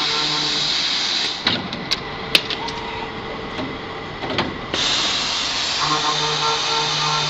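Automatic circular saw machine for steel round bar running with a steady hum and hiss. The hiss drops away about a second in for roughly three seconds, during which several sharp metallic clinks sound, then the steady running sound returns.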